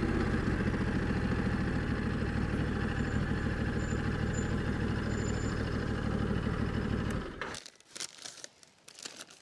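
Ducati adventure motorcycle engine idling steadily, cutting off suddenly about seven seconds in. Faint rustling of a paper bag follows.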